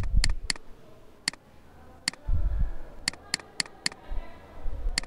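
Computer mouse clicking: about nine short, sharp clicks, some in quick runs, as the shrink-font button is pressed repeatedly. A few low, dull thumps fall among them.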